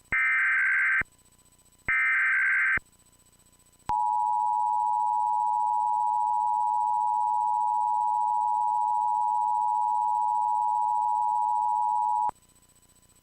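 Emergency Alert System tones: two roughly one-second bursts of SAME header data, a harsh digital warble, close out the header of a Required Monthly Test. About a second later the two-tone EAS attention signal starts, a steady dual-pitch tone held for about eight seconds that cuts off suddenly.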